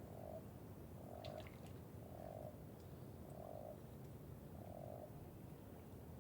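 A frog calling: five short croaks about a second apart, each under half a second long, over a steady low background hiss.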